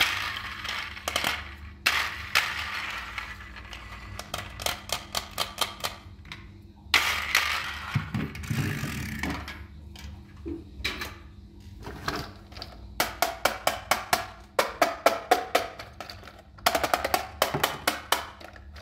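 Hard plastic toys handled in a cardboard box: knocks, scrapes and quick runs of sharp clicks, several a second, from a toy engine and a toy bus with plastic wheels being picked up and turned in the hand.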